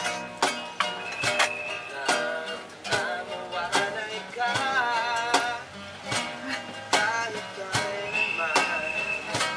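Two acoustic guitars played live, strummed with sharp accents and picked melody lines, with a voice singing along with vibrato.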